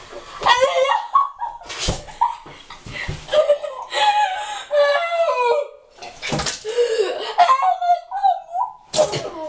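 Girls' voices laughing, squealing and spluttering in reaction to a mouthful of chilli powder, broken by a few sharp splutters.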